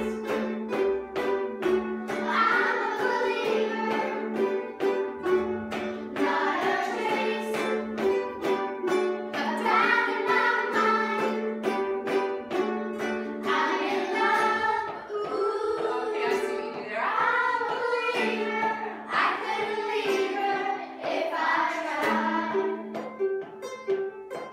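A group of children singing together while strumming ukuleles in a steady rhythm, a warm-up song led by their teacher on ukulele.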